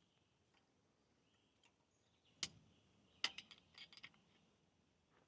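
Near silence broken by sharp clicks and taps of small tools and parts being handled: one about two and a half seconds in, then a quick cluster of several a second later.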